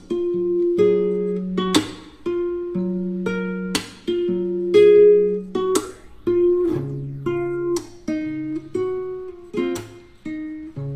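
Background music: acoustic guitar strumming chords at an even, unhurried pace.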